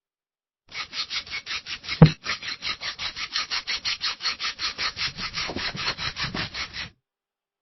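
Scissors cutting through paper in fast, even snips, about six a second, for some six seconds, with one louder knock about two seconds in.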